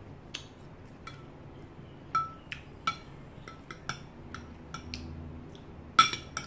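Metal spoon clinking and scraping against a glass food container in a dozen or so irregular taps, each with a short ring, the loudest near the end.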